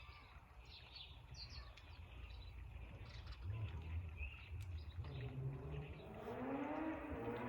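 Small birds giving short, high chirps here and there over a low background rumble. Near the end a buzzing insect hums close to the microphone, wavering in pitch and growing louder.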